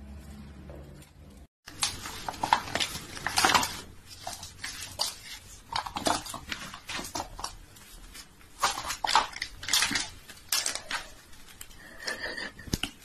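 Irregular sharp clicks, taps and rustles of a canvas sneaker and its laces being handled while a kitten paws at the shoe.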